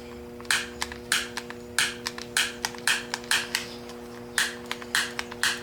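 Pocket lighter's spark wheel being flicked again and again, a sharp scratchy click about once or twice a second, failing to light: the lighter is worn out. A steady low hum runs underneath.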